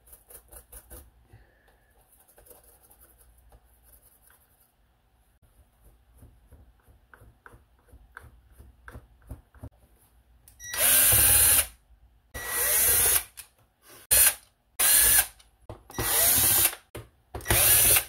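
Cordless drill-driver backing screws out of the robot vacuum's plastic base plate, in about six short runs of under a second each, starting about eleven seconds in. Before that only faint clicks from handling.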